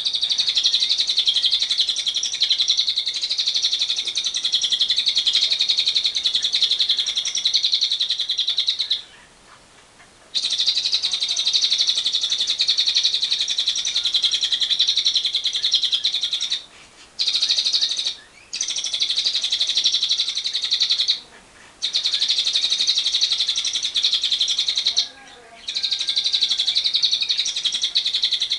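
Lovebird's 'ngekek panjang': a long, unbroken run of rapid, high, fast-repeated chattering notes. The chatter stops for about a second a third of the way in, then breaks off briefly a few more times in the second half before resuming.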